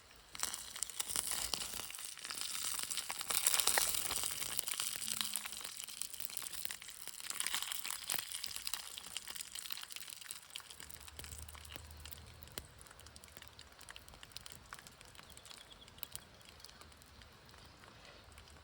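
Crinkling and rustling with dense fine crackles, loudest in the first half and fading later.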